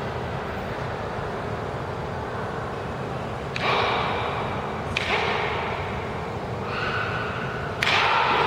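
Three sharp, held shouts (kiai) from iaido practitioners striking in a paired wooden-sword kata, each about a second long. The last and loudest comes near the end, over a steady hall hum.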